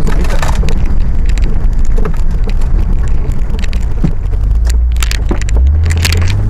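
Jeep Cherokee XJ's engine running under load over a rough dirt track, with scattered knocks and clatters from the body and suspension. About five and a half seconds in the engine revs up as the vehicle climbs a slope.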